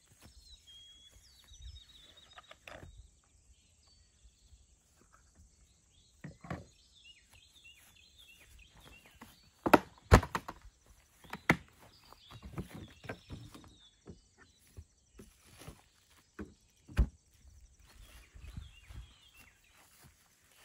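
A hard plastic camp cooler being opened and shut, giving a few sharp knocks of its lid and latches, the loudest pair about ten seconds in. Footsteps rustle through grass between the knocks, and birds chirp now and then.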